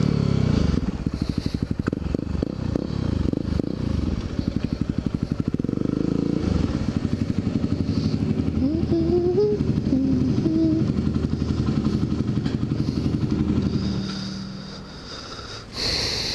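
Yamaha WR250R's single-cylinder 250 cc four-stroke engine running at low speed, a steady thumping pulse as the bike rolls along. It goes quiet about fourteen seconds in, and a short knock follows near the end.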